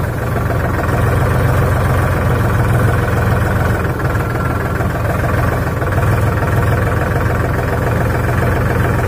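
Tractor diesel engine running steadily under load, heard from the driver's seat, as the tractor is forced through deep mud and standing water on a rutted track.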